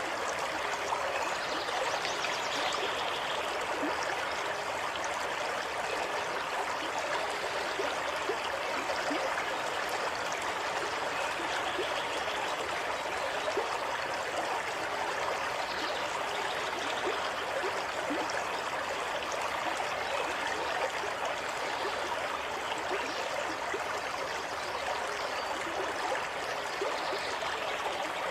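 Water running steadily in a small stream, a continuous even rush with fine bubbling and trickling.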